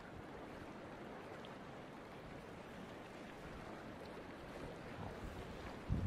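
Wind and choppy sea water: a steady, even hiss with no distinct events.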